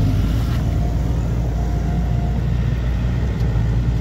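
A steady low engine rumble that runs without a break.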